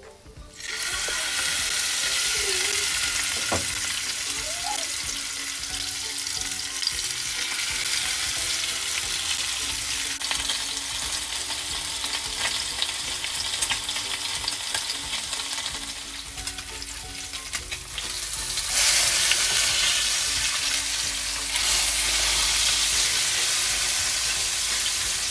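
Salmon fillets sizzling in hot oil in a nonstick frying pan: a steady frying hiss that starts about a second in as the fish goes into the pan and grows louder for the last several seconds.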